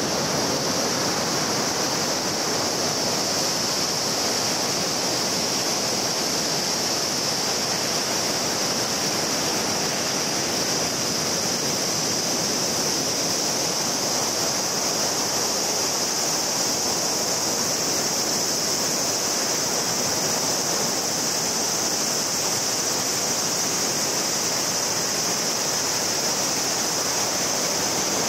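Ocean surf washing onto a sandy, rocky beach: an even, unbroken rushing noise with a strong high hiss over it.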